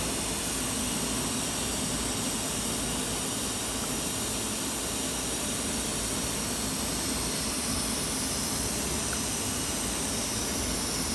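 Steady rushing machine noise with a low hum, unchanging throughout. The CNC router's gantry and head jogging in X, Y and Z at once are virtually silent beneath it.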